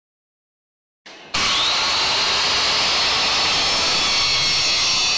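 Electric angle grinder switched on about a second in, its high whine rising briefly as it spins up, then running steadily and loudly at full speed.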